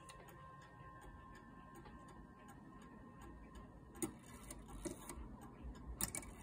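Faint, steady ticking of the pendulum escapement in a 1932 Hamburg American Clock Company (HAC) tambour mantel clock's no. 865 movement, with a couple of louder clicks near the end.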